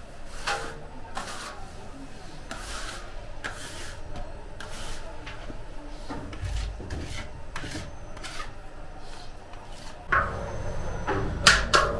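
Hand scraper scraping dough from the steel bowl and arm of a bakery dough mixer: irregular rasping strokes, about one or two a second. A low rumble joins about ten seconds in, with a few sharper scrapes near the end.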